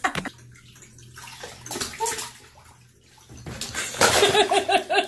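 Water sloshing in a bathtub, faintly, then near the end a loud rhythmic ha-ha-ha laugh of about three short bursts a second.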